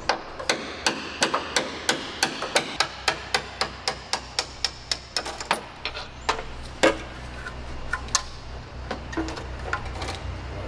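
Hammer tapping a tool into the seam at an aircraft's wing root: a steady run of sharp blows, about three a second, for some five seconds, then a few slower, spaced blows, one of them the loudest.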